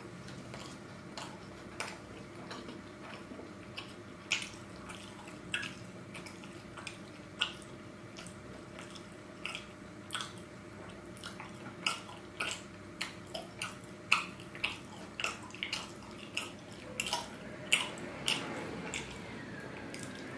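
Chewing a mouthful of tortilla wrap close to the microphone: a run of short, wet mouth clicks, sparse at first and coming faster from about four seconds in.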